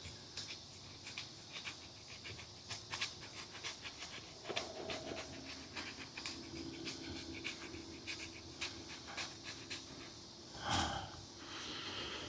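Spine of a fixed-blade knife scraping fat wood into fine shavings, in a quick series of short strokes. A brief louder sound comes near the end.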